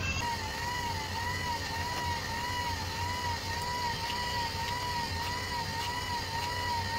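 Car wiper motor driving the paddles of a homemade dough maker through flour and water: a steady whine whose pitch wavers up and down about twice a second over a low hum, with faint ticks.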